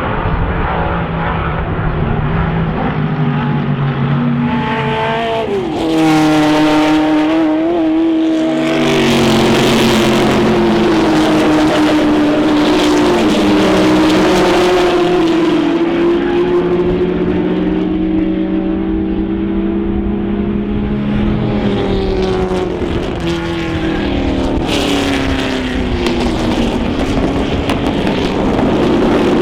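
Historic racing car engines running hard at speed, their note rising and falling through gear changes as cars pass. The sound gets louder about six seconds in.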